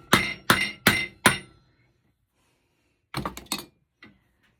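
Hammer blows on a copper-and-aluminum heat sink, knocking the cast aluminum off the copper. There are four sharp, ringing metal strikes about two and a half a second, a pause of about a second and a half, then two quicker knocks and a faint one near the end.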